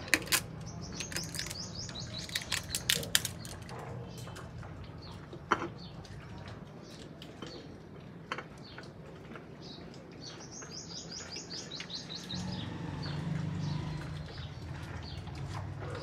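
A bird chirping in quick, high trilled runs, twice. Sharp clicks and clinks sound in the first few seconds and once more near the middle, over a low hum that grows louder near the end.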